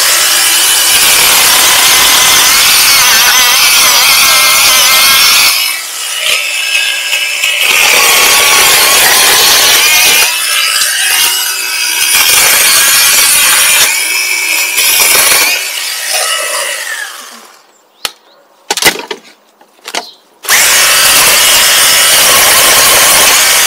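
Motor-driven power saw cutting through thin tree trunks and branches, running in long steady cuts with short dips. It stops about three-quarters of the way through, a couple of knocks are heard, and it starts cutting again near the end.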